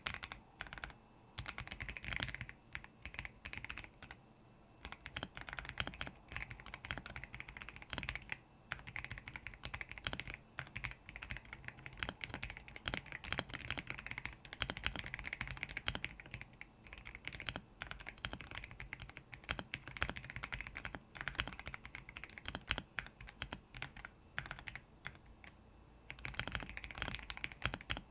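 Typing on a Royal Kludge R75 mechanical keyboard with lubed RK Brown tactile switches: rapid keystrokes in runs, broken by a few short pauses.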